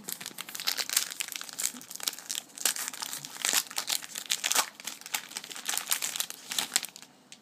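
Trading-card pack wrapper crinkling and tearing as it is opened by hand: a dense run of sharp crackles that stops near the end.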